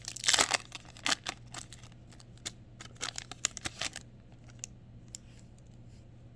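A trading-card pack wrapper crinkling and tearing open, with loud sharp crackles in the first half-second and scattered crackles and rustles of handled cards up to about four seconds in, then quiet.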